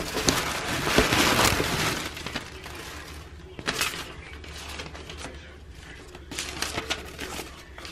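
Paper shopping bag and tissue paper rustling and crinkling as a hand rummages through them. The rustling is loudest for the first two seconds, with shorter rustles about halfway and again near the end.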